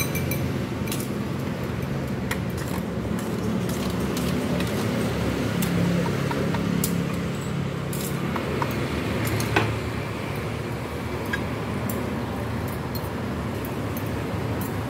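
Scattered clinks and clicks of metal tongs, a wire strainer and ceramic noodle bowls being handled while mie ayam is plated, the sharpest about nine and a half seconds in, over a steady low rumble of roadside traffic.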